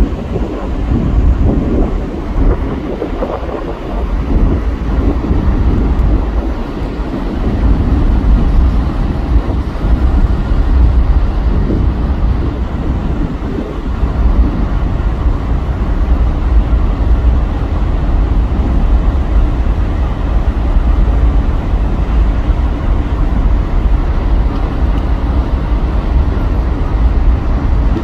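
Wind buffeting the microphone on a ferry's open deck at sea: a loud, steady low rumble that flutters in strength.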